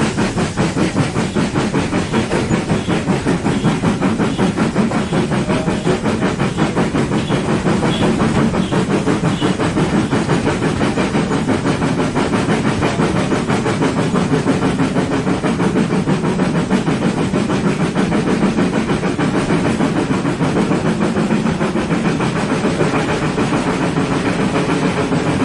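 Steam engine chuffing in a fast, steady run of exhaust beats with a hiss of steam, the beat quickening as it speeds up.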